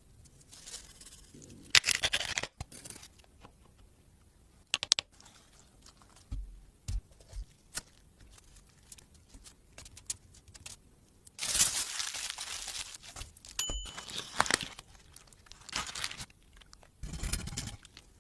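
Hands preparing food: irregular tearing, crinkling and crunching noises with scattered sharp clicks and knocks, loudest in bursts about two seconds in and again in the last third. A brief high beep sounds near the end.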